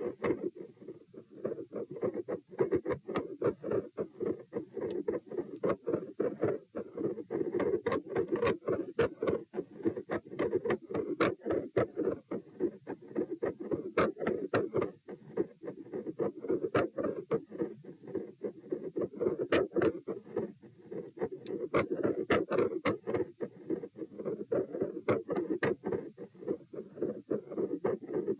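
Heart sounds through a stethoscope on the chest, a fast beat during a standing stress test, with many sharp clicks and scratches over it. The recorder hears a brief continuous murmur and beat-to-beat swings like phasic pressure changes, with normal and abnormal beats, which she wonders may be a PFO shunt.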